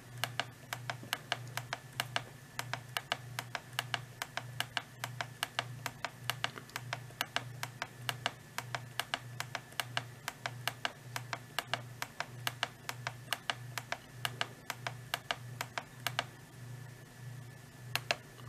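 Push buttons on a Midland ER50 emergency weather radio being pressed over and over, a sharp click a few times a second. The clicks stop about sixteen seconds in, with a couple more near the end.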